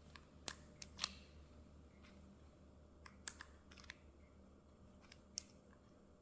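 A few light, sharp metallic clicks, spaced irregularly, as a newly cut key is slid into a dismantled Honda S600/S800 ignition switch, against near silence.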